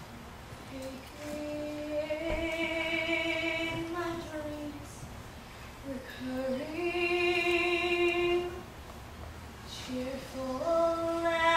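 A woman singing a slow solo in three long phrases with short pauses between. Each phrase rises to a held note with vibrato, and the last one begins near the end.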